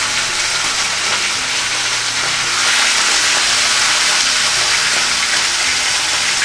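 Whole fish frying in hot oil in a pan: a steady loud sizzle that grows louder a little under three seconds in, as a second fish goes into the oil.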